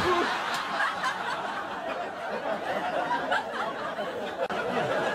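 Audience laughing: many voices at once in a steady mass of laughter.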